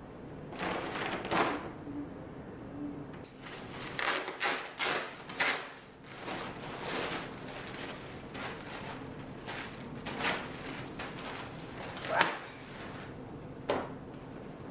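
Irregular handling noises: a series of knocks, clicks and rustles, as of objects being picked up, moved and set down.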